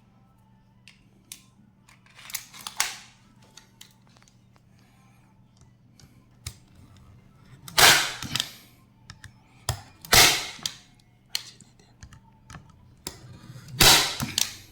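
Unitacker Light Force hand staple gun firing brad nails into a cable duct: three loud sharp snaps with a short ring, a couple of seconds apart, the last near the end, with lighter clicks of handling in between.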